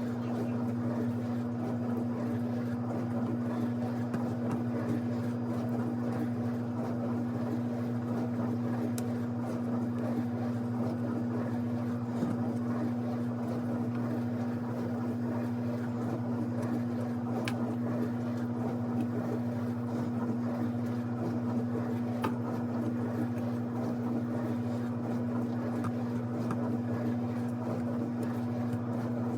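A steady low machine hum holding one even tone, with a few faint clicks.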